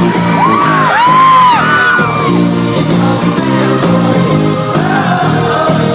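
Live pop music played loud in a concert hall, with a steady rhythmic beat. During the first two seconds several high whoops rise and fall over the music.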